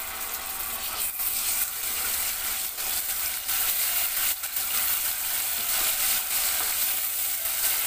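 Onions and ginger-garlic paste sizzling in hot oil in a pressure cooker, stirred with a wooden spatula that scrapes and knocks against the pan many times.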